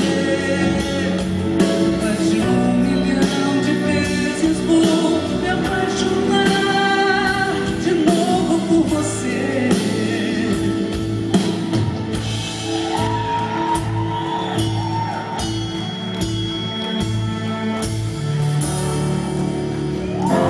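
A woman singing lead over a live band with a steady drumbeat, a pop song performed live.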